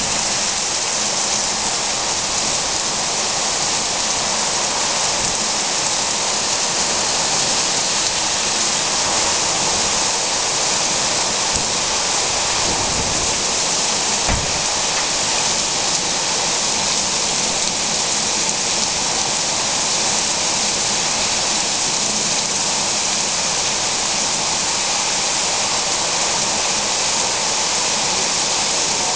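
Steady rain falling, an even hiss, with a brief low rumble about halfway through.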